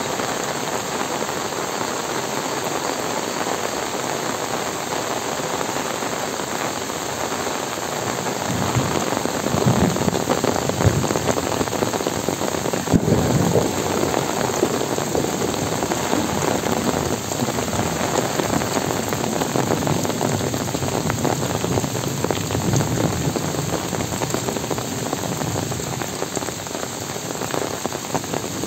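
Heavy rain falling steadily on trees, leaves and wet ground, heavier for a few seconds around the middle, with one sharp tap near the loudest point.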